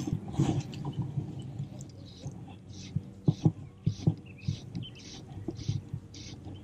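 Fly line being stripped in by hand with short, evenly spaced hissing pulls, about two a second. Close low thumps and knocks run underneath.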